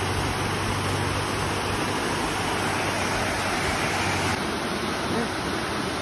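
White water rushing steadily down the sloping granite slab of Sliding Rock, a creek waterslide falls. A faint low hum runs under it for the first few seconds, then stops.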